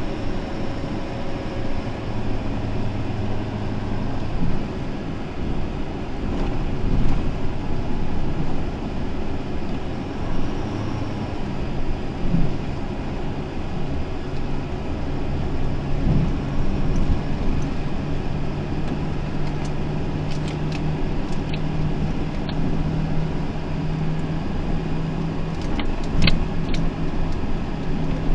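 Car driving slowly, heard from inside the cabin: engine running with road and tyre noise under a low, steady drone. A few sharp clicks come in the last several seconds.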